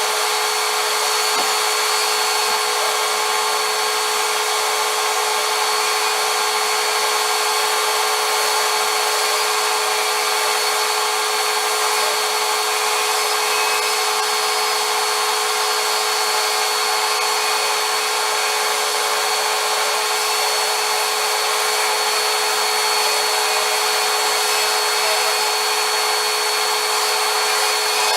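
Vacuum cleaner running steadily, a constant motor whine with a thin high whistle over it.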